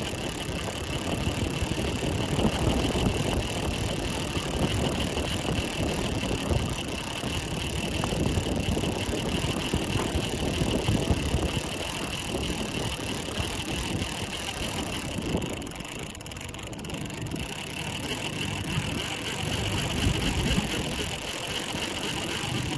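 Small fishing boat under way: a steady motor whine with wind buffeting the microphone, easing briefly about two-thirds of the way through.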